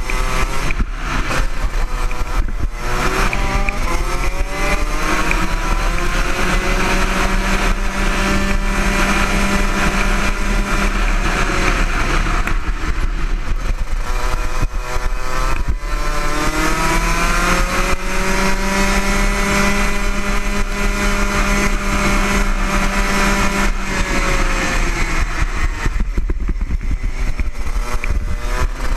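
Rotax Max Junior 125cc two-stroke kart engine at racing speed, its pitch climbing for several seconds along the straights and dropping into the corners, twice over.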